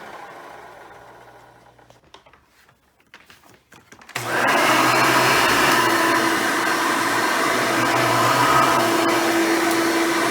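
Hoover Runabout vacuum cleaner motor winding down after being switched off, then a few light clicks and knocks. About four seconds in, the motor is switched back on and comes straight up to a loud, steady running whine.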